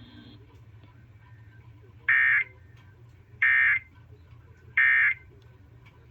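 Emergency Alert System end-of-message signal: three short bursts of SAME digital data warble, about a second and a third apart, marking the end of the severe thunderstorm warning.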